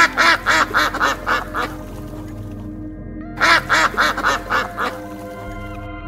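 Mallard duck quacking in two runs of quick, loud quacks, about four a second and fading through each run, the second run starting about three and a half seconds in. This descending series is typical of a hen mallard's call. Background music plays underneath.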